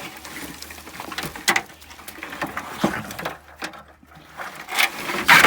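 Irregular scraping, rustling and short knocks as buried debris from the dig, a lump of old chain-link fencing, is pulled out of the soil. The loudest scrapes come near the end.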